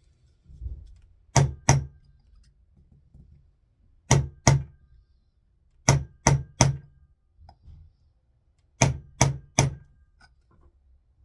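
Hammer tapping a small punch to drive the retaining pin for the rear firing pin into a Marlin Model 93 rifle bolt: ten sharp metallic taps in four quick groups of two, two, three and three.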